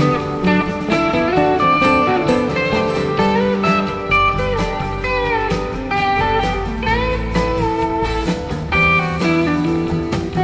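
Rock band playing live through an instrumental passage: electric guitar lines with bending notes over bass and drums.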